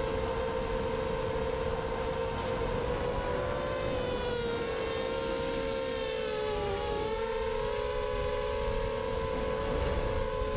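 FPV miniquad's brushless motors and propellers whining in flight. Several close tones drift apart and back together, dipping and rising as the throttle changes, over a steady rush of air.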